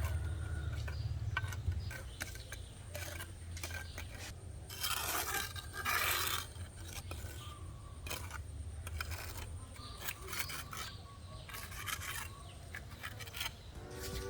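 Intermittent scraping and rubbing from work on red bricks laid as garden stepping stones, louder about five and six seconds in, over a low steady rumble.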